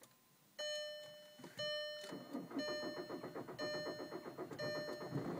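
2004 Jetta TDI's 1.9 L PD diesel cranking over on the starter in a fast, even rhythm without catching: excessive cranking on a cold start, a hard-start fault the owner has not cured by replacing the crank sensor. A car warning chime dings about once a second throughout.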